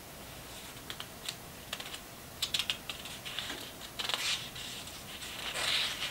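Fingertips tapping lightly on the pages of an old book: quick, irregular clicks, with soft paper rustles now and then.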